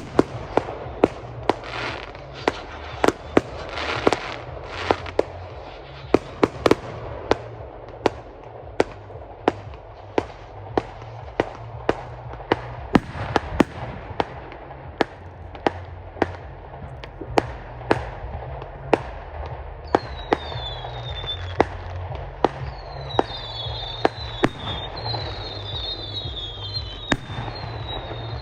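A firework display: a continuous, irregular run of sharp bangs from aerial shells, about one or two a second, over a steady crackling rumble. In the last several seconds, short high falling whistles join in among the bangs.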